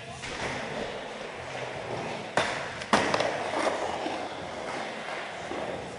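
Skateboard wheels rolling over the ramps. About two and a half seconds in come two sharp knocks of the board hitting the ramp, half a second apart and the loudest sounds here.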